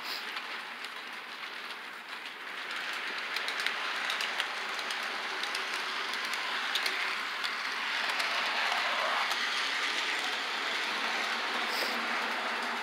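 HO-scale model freight train rolling along its track: a steady whirr of wheels on the rails with fine clicking over the rail joints, getting louder about two seconds in.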